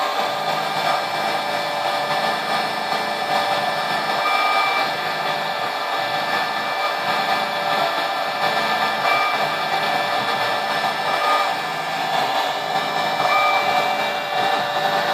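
Router on a homemade CNC machine running steadily, its V-bit carving a Corian tile in the deep roughing (hog-out) pass. Short higher tones come and go several times over the steady motor sound.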